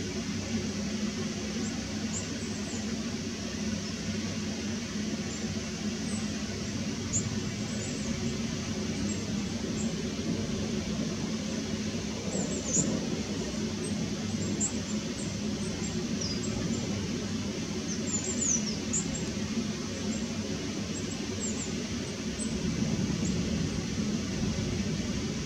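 Steady hiss of thunderstorm rain on foliage, with short, thin, high bird calls coming now and then, in a loose cluster a little under halfway through and again past the middle.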